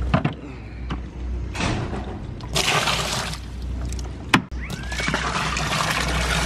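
Water poured from plastic tubs into a plastic trash can, in several splashing pours, with a sharp knock of plastic about four seconds in.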